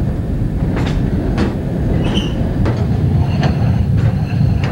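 Hi-rail truck running along jointed railway track: a steady low rumble with a sharp click every second or so as the wheels cross rail joints.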